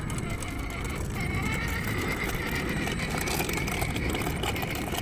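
Radio-controlled trail truck driving over rough asphalt while towing a small trailer: its electric motor and gears whine steadily over the rolling noise of the tyres and trailer wheels on the gritty surface.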